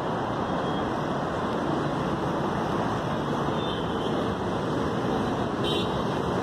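Steady rushing outdoor background noise with no distinct events, and a brief high hiss about five and a half seconds in.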